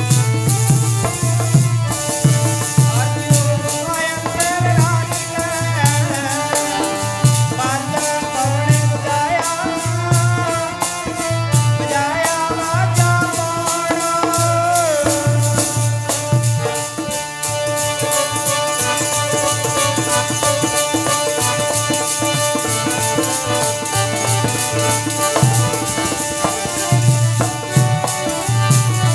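Devotional kirtan music: harmonium holding steady sustained notes, a wavering melody line over it for roughly the first half, and a tabla keeping a steady low beat.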